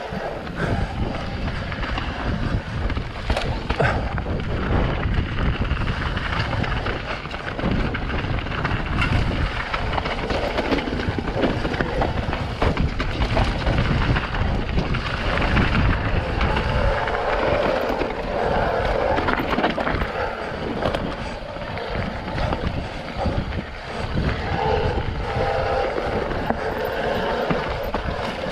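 Mountain bike riding down a steep dirt trail: tyres rolling over the ground while the bike rattles and clatters over bumps, with wind rumbling on the microphone.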